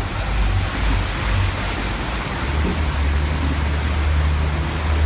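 Safari ride truck driving along, with a steady low engine drone under an even hiss of wind and road noise.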